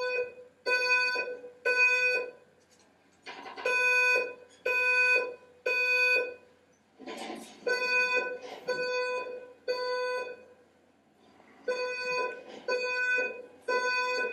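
Simplex fire alarm speaker sounding the temporal-3 (code 3) evacuation tone: three half-second beeps about a second apart, then a pause, in four repeating sets. Each set opens with a short noisy burst.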